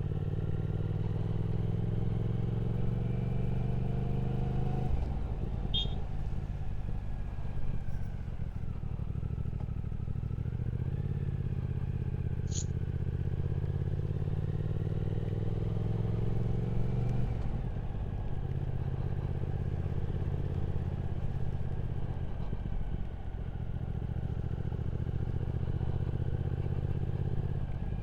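Triumph Speed Twin 1200's parallel-twin engine under way at road speed. Its pitch climbs slowly, drops at a gear change about five seconds in, climbs again and then holds steady, over a constant rush of road noise. Two brief high chirps sound at about six and twelve seconds.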